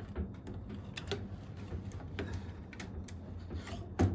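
Scattered small clicks and taps as a freeze dryer's panel is worked out and turned over by hand, with a sharper knock near the end, over a steady low hum.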